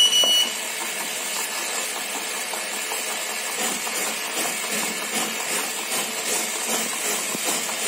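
Cotton wick cutter machine running with a steady mechanical hiss, with a short electronic beep right at the start.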